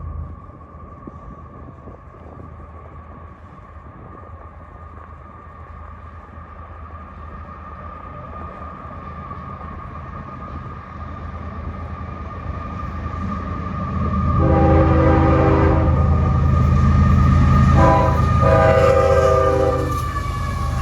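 An approaching CSX freight train led by GE ES44AH diesel locomotives, its engine rumble growing steadily louder. About two-thirds of the way in, the locomotive's air horn blows a chord: one long blast, a short one, then another long blast. A steady high tone sounds throughout.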